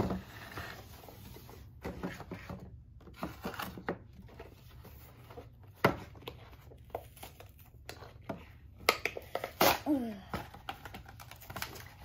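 Toy figure's plastic blister packaging being torn and crinkled open off its cardboard backing, with irregular sharp crackles and snaps.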